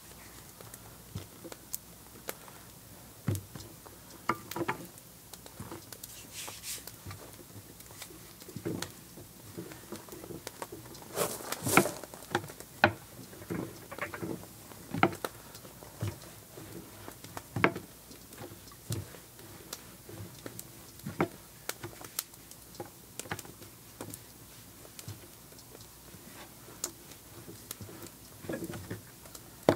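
Tortilla dough being patted flat by hand and rolled out with a wooden rolling pin on a floured wooden tabletop: irregular soft taps and knocks, with a cluster of louder knocks near the middle.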